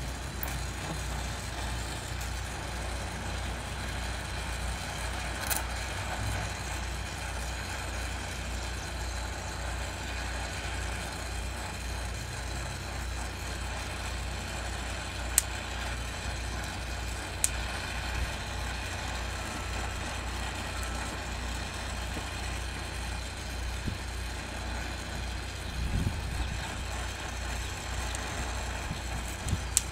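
Oxy-acetylene welding torch flame hissing and rumbling steadily while a steel frame joint is welded, with a few sharp clicks.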